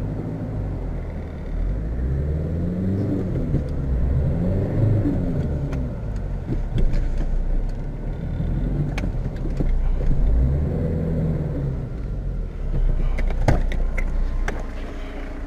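Fiat Tipo's 1.9 turbodiesel engine revving up and falling back several times as the car tries to drive out of deep snow it is stuck in. A few sharp knocks come near the end.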